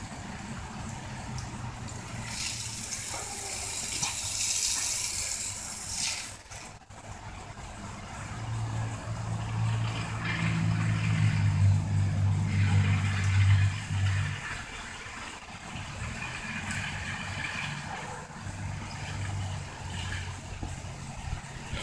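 A vehicle engine runs steadily throughout and is much louder for about six seconds in the middle. It sits under the hiss of a spraying jet of water, which is loudest for a few seconds near the start.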